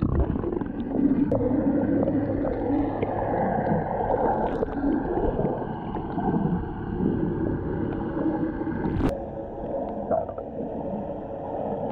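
Muffled underwater sound picked up by a camera in a waterproof housing: water gurgling and rushing past it, with a low hum. A single sharp click comes about nine seconds in.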